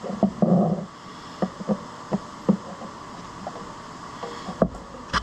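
Phillips screw being turned by hand with a screwdriver into a threaded hole in a steel clamp, giving irregular small clicks and taps of tool and metal, with a sharper click near the end.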